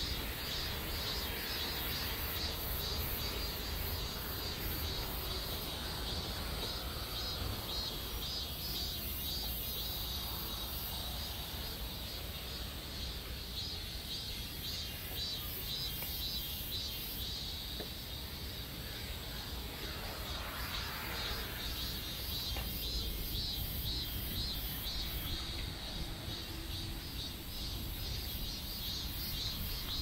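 Insects chirping in a steady, rapidly pulsing high chorus over a low steady rumble.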